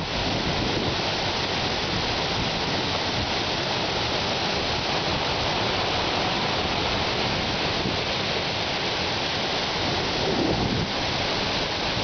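Whangarei Falls plunging into its pool: a steady, unbroken rush of falling water.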